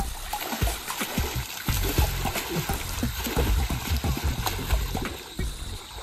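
Pool water splashing and churning irregularly as a swimmer strokes and thrashes through it, with music playing in the background.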